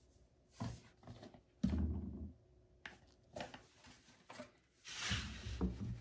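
Laundry being grabbed and moved by hand inside the drum of a front-loading washing machine: several soft thumps and rustles of fabric, the loudest a low thump about two seconds in and a longer rustle near the end.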